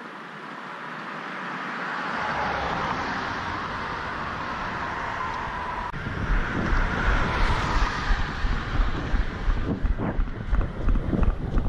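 Road traffic passing on the bridge beside the walkway, a hiss that swells over a few seconds and then fades. From about halfway, wind buffets the microphone in irregular low gusts that become the loudest sound.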